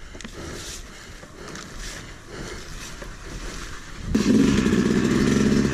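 Yamaha YZ250 two-stroke dirt bike going down a trail with little throttle, the engine quiet under a haze of tyre and wind noise. About four seconds in the throttle opens and the engine runs loud and steady.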